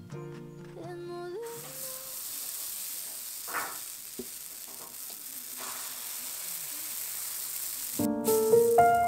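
Pancake batter sizzling on a hot non-stick pan, a steady hiss with a few soft scrapes. Background music plays at the start and comes back louder near the end.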